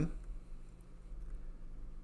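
A pause in speech: faint room tone with a steady low hum.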